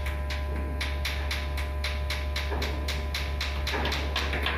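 Rapid, even tapping of a hand chipping hammer on the ferry's steel hull plating, several strokes a second, knocking off rust, over a steady low hum.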